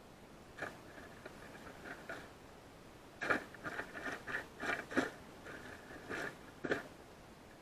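Gray squirrel foraging in dry leaf litter close by: a run of short crackling rustles and crunches, a few at first, then a quick cluster about three seconds in, the last one near the end.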